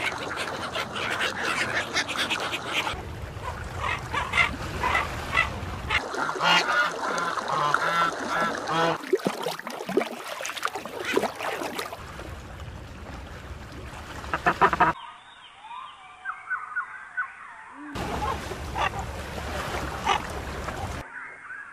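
Ducks quacking and giving honking calls, many overlapping. The sound changes abruptly about every three seconds as one clip cuts to the next. Near the end there is a quieter stretch with only faint bird chirps.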